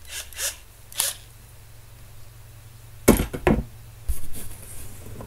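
Small tools and parts being handled on a workbench: a few light clicks near the start, a louder double knock about three seconds in, then a short rustle.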